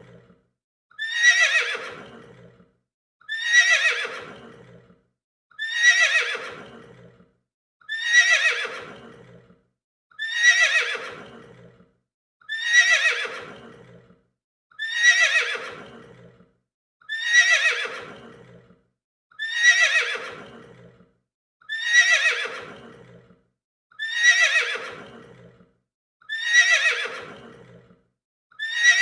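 A horse whinnying, the same recorded whinny repeated about a dozen times, a little over every two seconds. Each call starts high and falls in pitch as it fades, lasting about a second and a half.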